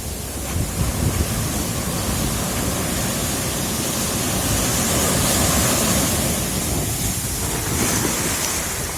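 Sea surf washing onto the shore, with wind rumbling on the microphone; the wash swells around the middle and eases again.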